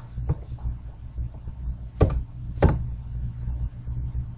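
A few computer keystrokes, the two loudest about 2 and 2.7 seconds in, over a steady low hum.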